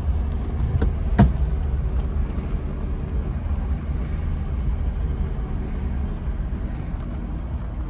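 Cabin sound of a 1973 Mercedes-Benz 280C moving off at low speed, its carbureted 2.8-litre M110 inline-six running with a steady low rumble. A sharp click sounds about a second in.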